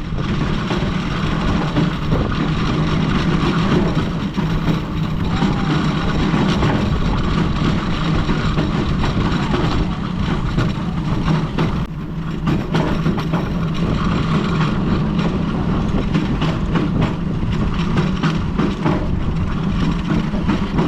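Rail bike's steel wheels rolling along the railroad track: a steady rumble with many small clicks.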